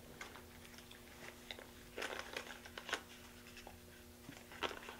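A child biting and chewing a Bertie Bott's jelly bean: a scatter of short crunches and clicks, busiest about two to three seconds in and again near the end, over a faint steady hum.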